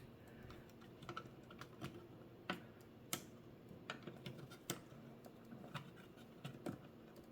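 Faint, irregular small clicks and ticks of metal flat-screwdriver tips working back and forth against the plastic locking tabs of a tight LCD driver ribbon-cable connector, prying it loose.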